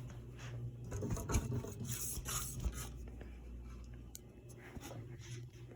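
CEC close mount ceiling fan's motor running with a steady low hum, with faint rubbing and scraping and a few light clicks over it.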